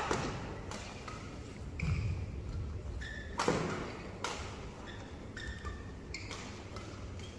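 Badminton rackets striking a shuttlecock in a fast doubles rally: about six sharp hits, roughly one a second, the loudest about three and a half seconds in. Short high squeaks of court shoes come between the hits, over the hum of a large indoor hall.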